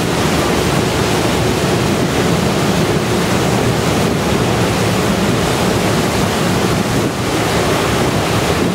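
Water gushing from an outlet in the hull of the Stewart J. Cort, a 1000-foot Great Lakes bulk carrier, and splashing into the churning wash at its stern: a loud, steady rushing.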